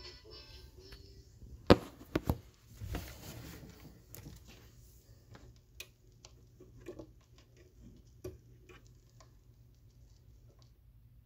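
The tail of the record's accordion band music dies away at the start. Then come scattered sharp clicks and knocks, loudest and closest together about two to three seconds in, thinning out to faint irregular ticks.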